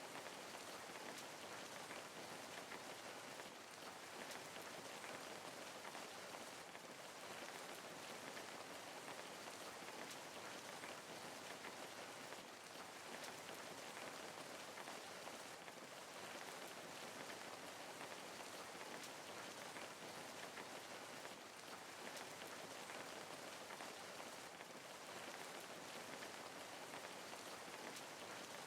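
Steady rainfall: a constant hiss of rain with scattered drops pattering on a surface.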